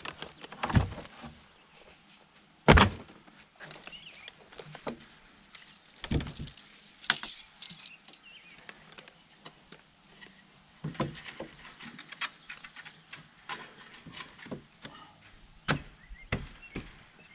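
Irregular knocks, clunks and clatters of hands and tools working at the bottom of a wooden plank door, with one loud sharp knock about three seconds in.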